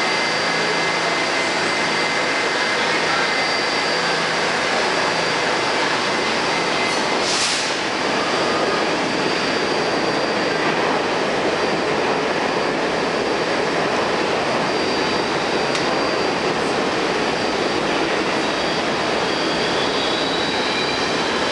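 R68 subway train standing at the platform with its doors open, its onboard equipment running with a steady whir and a faint high whine. A short hiss comes about seven and a half seconds in.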